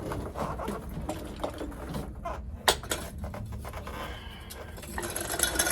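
Scattered light clicks and clunks of tools and drive shaft parts being handled, with one sharp knock about halfway through and more clatter near the end.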